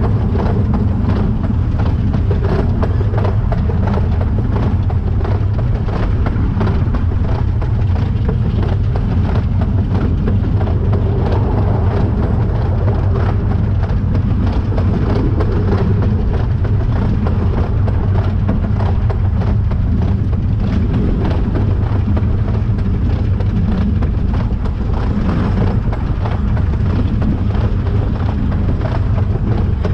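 A narrow-gauge 2-6-2 steam tank locomotive running under way, heard from its cab: a steady, loud mix of engine and wheel-on-rail noise over a heavy low rumble.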